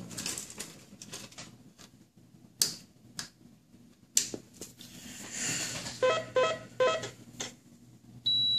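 Scattered clicks and taps from hands handling an RC truck's wiring and electronics. About six seconds in come four quick electronic pips, and near the end a steady high-pitched electronic beep starts.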